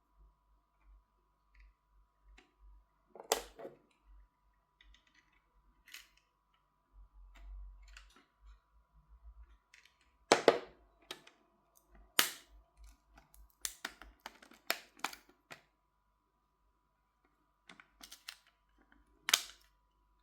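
Sharp plastic clicks and snaps, scattered irregularly and bunched in quick runs past the middle: a phone's plastic back cover being pressed down so its edge clips snap into place.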